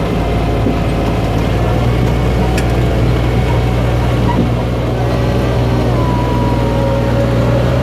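The engine of a John Deere tractor pulling a farm ride train, running steadily as the train rolls along.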